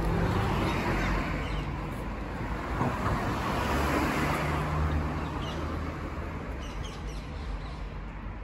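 Road traffic going by: a steady wash of car noise that swells in the middle and fades away over the last few seconds, with a few faint high chirps near the end.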